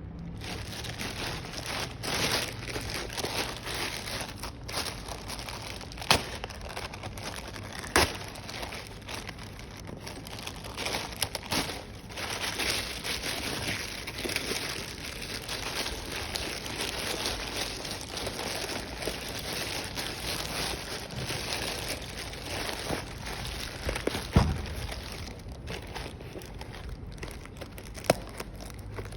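Packaging being handled during an unboxing: continuous rustling and crinkling of plastic and paper, broken by a few sharp clicks or knocks, the loudest about 24 seconds in.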